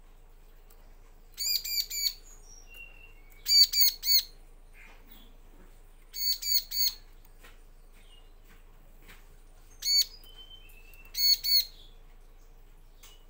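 Bar-winged prinia (ciblek) calling: five short bursts of sharp, high chirps, mostly three or four quick notes each, a few seconds apart, with a few fainter single notes between them.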